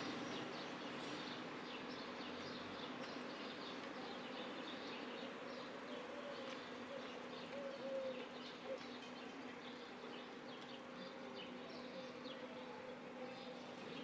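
Faint steady background noise with a low hum and many light, scattered ticks.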